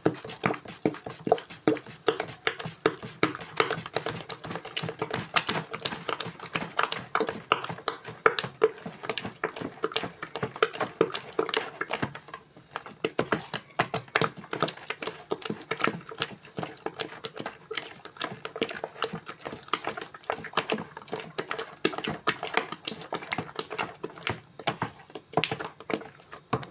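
Wooden spoon fast-stirring thick tapioca batter in a plastic bucket, a rapid, irregular clacking of spoon against the bucket's sides. It pauses briefly about halfway through.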